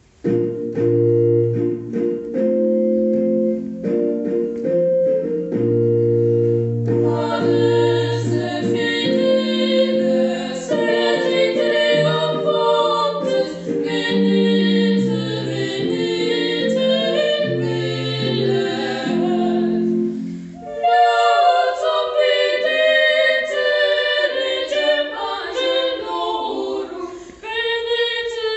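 Organ playing held chords as an introduction, then boys' voices singing over it from about seven seconds in. About twenty seconds in the organ stops and the boys sing on unaccompanied.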